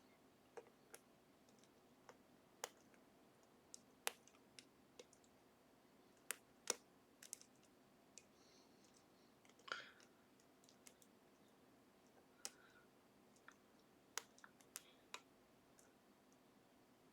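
Faint, irregular metallic clicks of a lock pick and tension wrench working the gin spool pins inside an Assa Ruko 500 pin-tumbler lock, scattered at uneven intervals.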